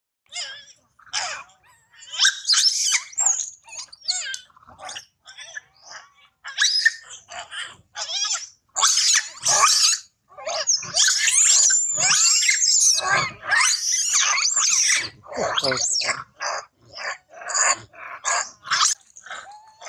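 Long-tailed macaque screaming: a run of short, shrill, high-pitched cries that grows into long, almost unbroken screaming about halfway through, including a held piercing note.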